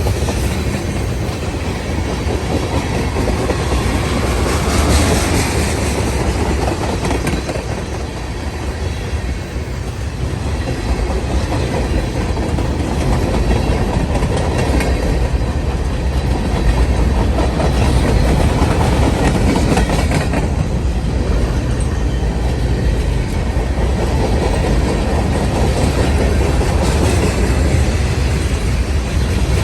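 CSX freight train's cars rolling past, a steady rumble of steel wheels on the rails.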